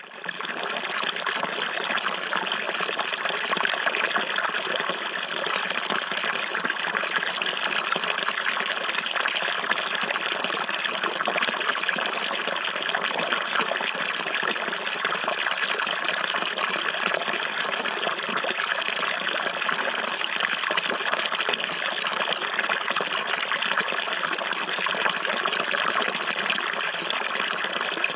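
Falling water splashing steadily, fading in at the very start.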